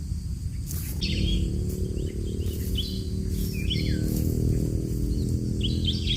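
Small songbirds calling in short high chirps and quick downslurred notes, beginning about a second in and bunching again near the end, over a steady low rumble.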